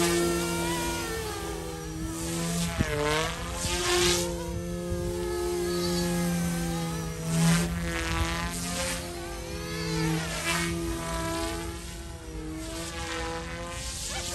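YXZNRC F280 RC helicopter flying, its dual brushless direct-drive motors and rotor blades giving a steady buzzing hum whose tone sweeps up and down as it moves about.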